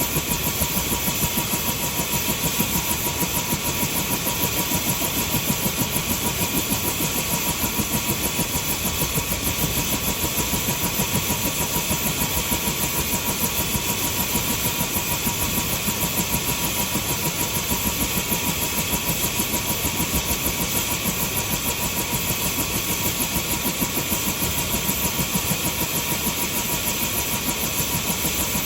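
Helicopter engine running steadily: a constant high whine over a fast, even pulsing.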